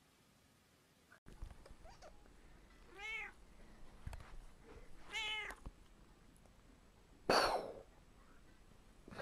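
Black cat meowing twice, two short calls that rise and fall in pitch about two seconds apart, followed near the end by a brief hiss.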